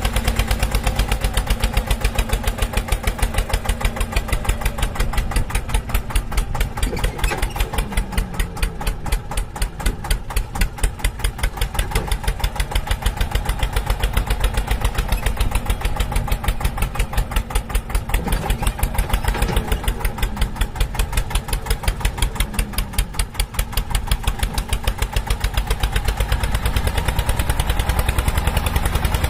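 Tractor engine running steadily at idle with a fast, even putt-putt beat.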